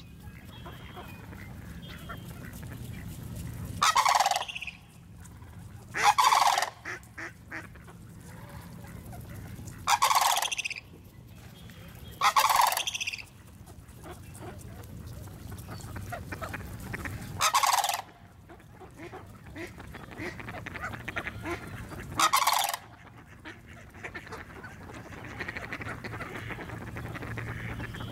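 Sandhill cranes calling: six loud calls, each about a second long and a few seconds apart, over a steady low background rumble.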